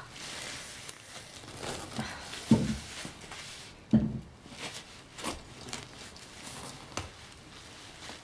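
A knife working into the hard rind of a large parami fruit: scraping and cutting noises with a few dull knocks, the loudest about two and a half and four seconds in.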